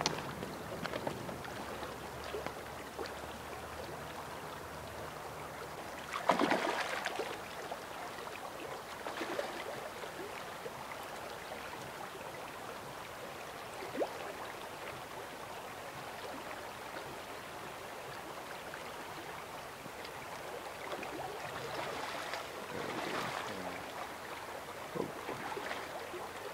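Shallow creek running over a rocky riffle: a steady rush of water, broken a few times by brief louder bursts of noise.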